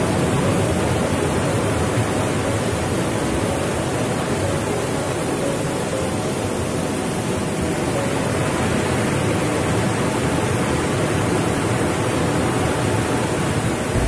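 Whitewater rushing over rocks in a river rapid: a loud, steady rush of water.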